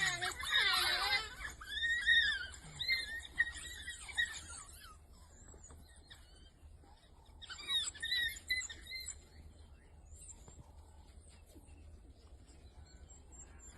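African painted dogs calling in high, arching twitters and squeals. The calls come in a busy burst over the first few seconds, fade, then rise again in a second flurry about eight seconds in.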